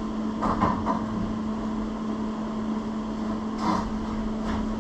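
A steady machine hum with a few short knocks, the first group about half a second in and another near the end, likely steel parts of the plow mount and its pin being worked back and forth.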